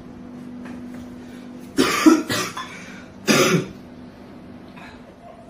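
A young man coughing hard in two bouts, about two seconds in and again a second later. It is a persistent cough presented as a sign of tuberculosis.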